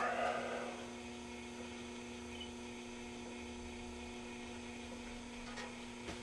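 Steady electrical mains hum from the bench power setup, a variac feeding an isolation transformer, as a vintage tube radio is brought up slowly on reduced AC voltage. A brief rustle comes at the start.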